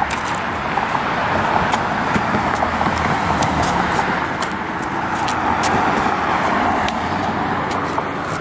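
A car driving past on the road: steady tyre and engine noise, with scattered clicks on top.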